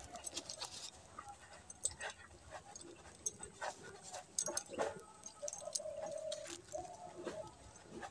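Hand-milking a cow: irregular short clicks and clinks from the milking strokes and the milker's wrist bangles. An animal whine, a steady held tone, comes in near six seconds in and again briefly just after.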